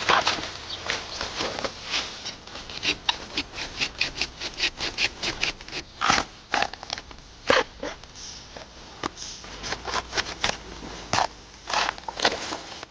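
Rustling and crackling in dry bamboo litter and undergrowth: an irregular run of short, sharp snaps and crackles, often several a second.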